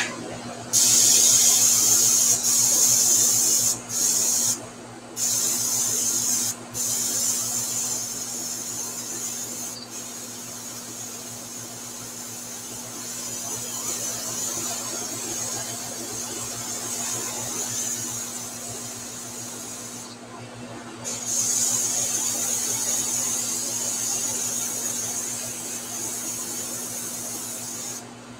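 Airbrush hissing as it sprays, cutting out briefly several times as the trigger is let off and pressed again. A steady low hum runs underneath.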